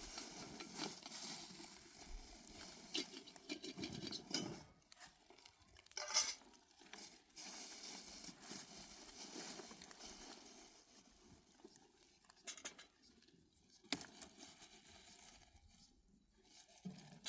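Irregular rustling and crinkling handling noises with a few sharp clicks, fading to quieter spells near the end.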